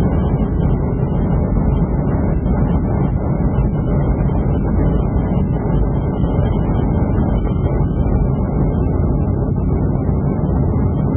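Steady cabin noise of a Boeing 757 airliner on approach to landing: an even engine and airflow rumble heard from a window seat, heaviest in the low end.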